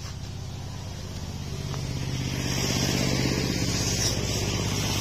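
A small engine running steadily, growing louder about two seconds in and then holding.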